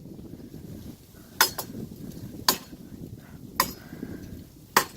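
An axe chopping into wood: four sharp strikes about a second apart. Wind rumbles on the microphone underneath.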